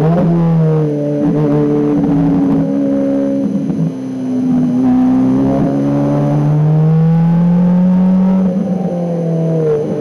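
Ferrari race car engine pulling hard at high revs, its pitch climbing slowly and then dropping at each upshift, several times over, with a brief dip in loudness about four seconds in.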